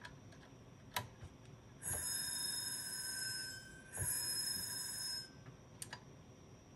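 Spindle motor of an IBM XT 5160's 10 MB hard drive, cover off, being spun by hand to kickstart it: twice a click followed by a high whine of a second or so as the motor is driven but does not catch, with a few lighter clicks between.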